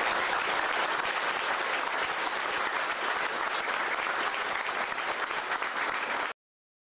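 Audience applauding steadily, a dense patter of many hands clapping, which cuts off suddenly shortly before the end.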